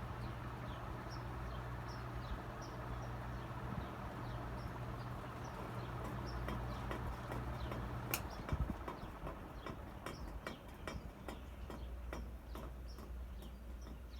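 Antique Diehl ceiling fan running and wobbling: a steady motor hum and a rush of air from the blades, with a light tick repeating about twice a second. About eight seconds in there is a click, part of the hum drops out, and the ticks come faster, about three a second, as the fan runs up to speed.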